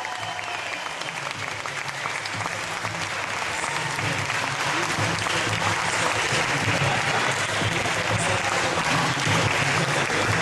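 Spectators applauding, the clapping growing gradually louder.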